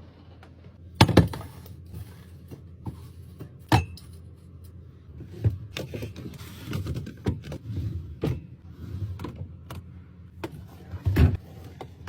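Items being handled and set down while a fridge is restocked: an irregular run of taps, clicks and knocks with some rustling between them, over a steady low hum.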